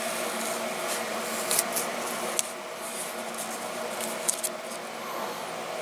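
Tamiya masking tape being peeled slowly off a painted diecast model, giving a few short, sharp crackles and ticks, over a steady low background hum.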